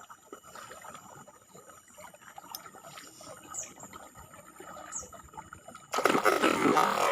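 Faint trickling, flowing river water with small scattered ticks. Louder background music cuts in suddenly near the end.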